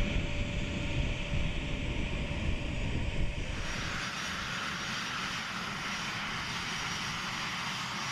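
Twin TF34 turbofan engines of an A-10 Thunderbolt II running at taxi power with a steady high whine. About three and a half seconds in, the sound changes abruptly to a broader, steady jet hiss.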